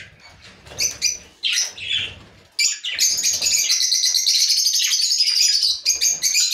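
A flock of budgerigars chirping and chattering: a few short scattered chirps, then from about two and a half seconds in a continuous rapid, high-pitched chatter.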